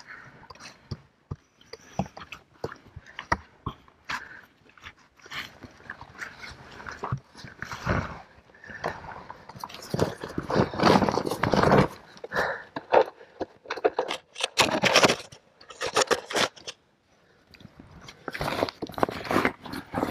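Cavers crawling through a tight, muddy rock squeeze, shoving and dragging tackle bags through it: irregular scraping and crunching of gravel, caving suits and bags against rock, with louder stretches about ten and fifteen seconds in.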